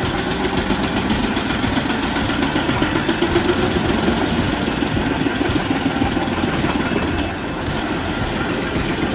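Large truck-mounted hybrid drum chipper running under load as it chips wood, a steady dense mechanical din.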